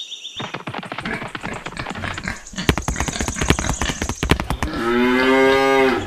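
A cow mooing once, a single call about a second long near the end, preceded by a few seconds of rapid clattering clicks.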